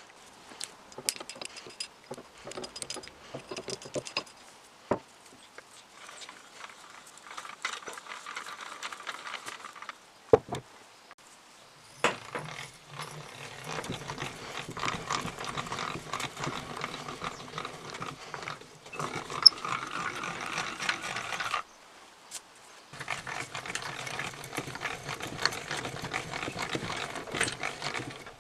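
Millers Falls No. 118 two-speed breast drill cranked by hand, its gears turning as the twist bit cuts into a block of wood. Scattered light clicks and knocks come first, with one sharp knock about ten seconds in; the drilling then runs in two long stretches with a short pause between.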